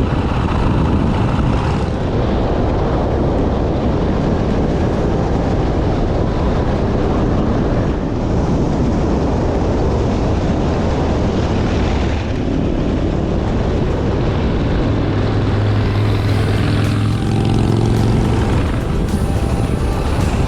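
Motorcycle engine running at road speed under heavy wind rumble on the microphone; a few seconds before the end the engine note comes through more strongly as a steady hum.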